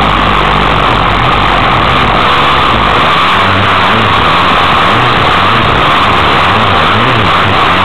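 Dirt bike engine rising and falling in pitch as the rider works the throttle round a dirt track, under a loud, constant rush of wind and track noise on a bike-mounted camera.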